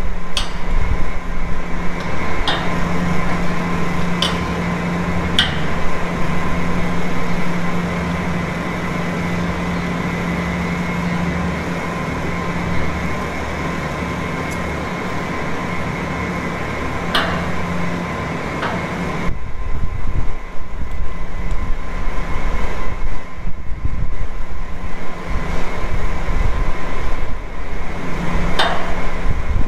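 Steady mechanical hum of barn circulation fans, with a few sharp knocks and clinks scattered through. About two-thirds of the way in, the hum gives way to an uneven low rumble.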